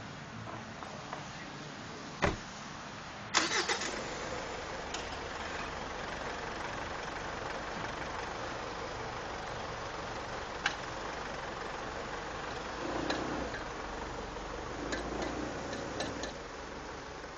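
A sharp click, then a little after three seconds a Mitsubishi L200's engine cranks and starts, settling into a steady run with a few isolated sharp clicks and knocks.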